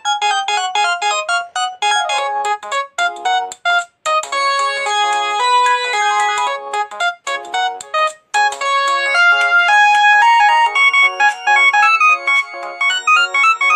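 Polyphonic ringtone melodies from an LG GS101 mobile phone: a quick tune of short notes, with brief breaks about four and eight seconds in where the tune restarts or the next ringtone begins.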